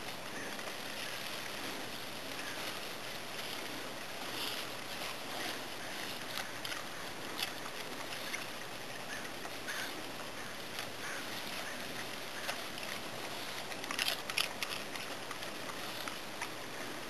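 Pea vines and leaves rustling and crackling as a bulldog pushes its head about among them, over a steady background hiss. A short flurry of sharper crackles comes near the end.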